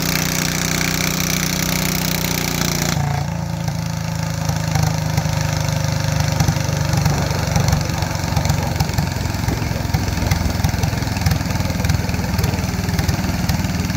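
14 hp Ford garden tractor engine running steadily under throttle with the sled stopped, then about three seconds in it drops to a lower, uneven idle that carries on.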